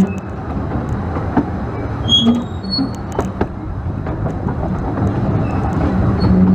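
A 15-inch gauge steam train running along the line, with a steady rumble and scattered clicks from the wheels, and heavy wind buffeting on the microphone. A short steady tone sounds near the end.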